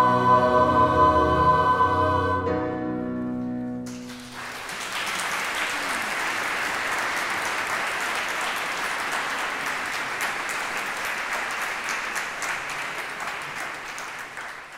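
Mixed a cappella choir holding its final chord, which is released about three to four seconds in. Audience applause follows and continues, fading out at the end.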